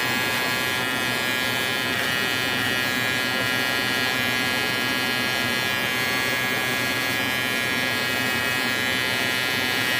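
Cordless Kemei detailer hair trimmer running with a steady, even buzz while trimming hair close, the way a blade shave would.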